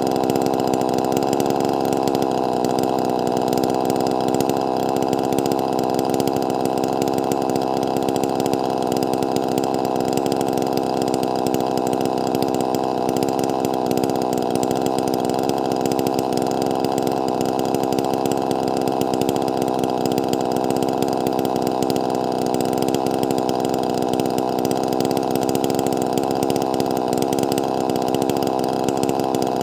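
Wagner 580 two-stroke chainsaw running at a steady, unchanging pitch near full throttle, held in a long cut while ripping a large log lengthwise.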